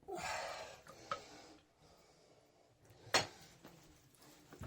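Moen shower valve cartridge being wiggled and pulled out of the valve body: a short scraping rub, a light click, then one sharp knock about three seconds in.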